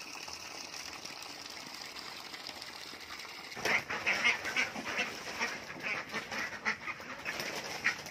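Water pouring from a hose into a plastic-lined pool, a steady splashing. About three and a half seconds in, a group of young domestic ducks quack over and over in quick short calls.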